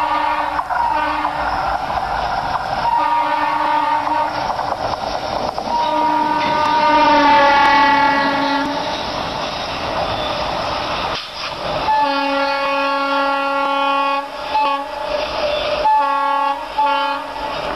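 A pair of WDM-2 ALCO diesel locomotives running light, sounding a multi-tone air horn in repeated blasts. A long blast about six seconds in sinks in pitch as the engines pass, then engine and wheel rumble, and a further string of blasts near the end as they draw away.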